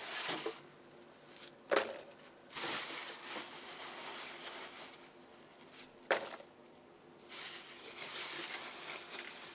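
Biodegradable packing chips and polystyrene pieces rustling and pattering as they are dropped and spread by hand over the bottom of a cardboard box, with a sharp knock twice.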